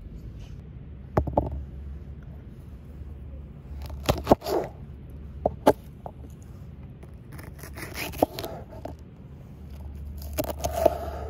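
Kitchen knife working on a wooden chopping board while a green bell pepper is cut open: scattered sharp knocks of the blade on the board, and a crisp, crunchy scraping near the end as the knife slices through the pepper.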